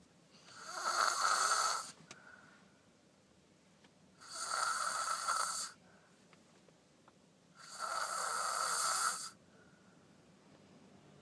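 A child snoring loudly: three long, harsh snores about three and a half seconds apart, with faint breaths between them. The uploader links the snoring to tonsils and sleep apnea.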